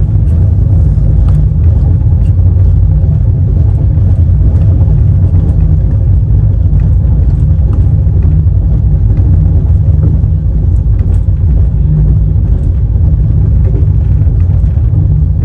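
Express train running at speed, heard on board: the loud, steady rumble of the coach's wheels on the rails, with faint scattered clicks.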